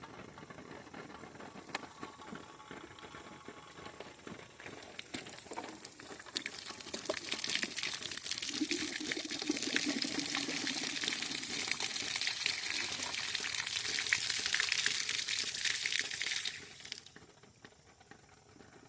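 Water pouring out of a plastic jug, a steady splashing hiss that starts about five seconds in and stops about two seconds before the end.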